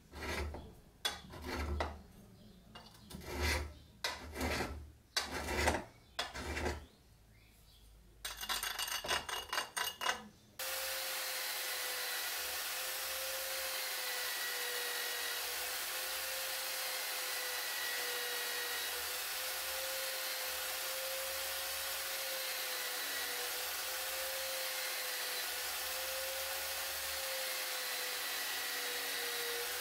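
A steel knife blade scraped against a glass jar in separate strokes, about ten of them, then a quicker run of short strokes. From about ten seconds in, an electric motor spins a felt polishing wheel steadily with a slightly wavering whine, the blade held against it for polishing.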